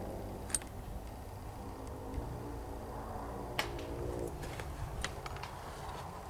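A few scattered sharp clicks, about three, over a steady low rumble of wind and handling noise, with faint distant voices midway.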